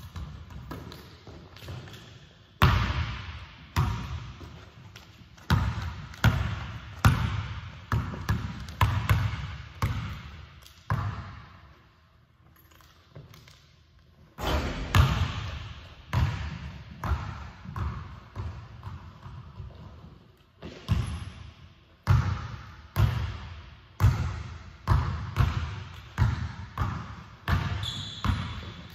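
Basketball being dribbled on a hardwood gym floor, sharp bounces in uneven runs, each one echoing in the hall. There is a lull of about three seconds midway before the dribbling picks up again.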